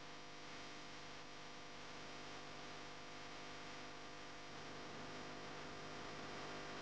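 Faint steady electrical hum with a light hiss underneath, unchanging throughout, with no knocks or clicks.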